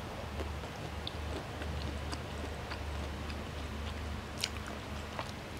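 Someone eating spaghetti with prawns close to the microphone: soft chewing with a few scattered small mouth clicks and smacks, the sharpest about four and a half seconds in, over a steady low hum.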